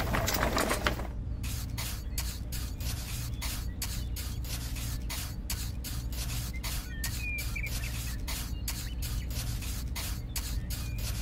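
Small hand trowel scraping and smoothing wet cement, in quick even strokes about three a second.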